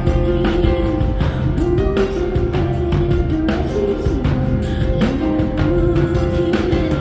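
Live band music: a female singer holds long, wordless notes that slide up into pitch, over a steady drum beat, bass and keyboards.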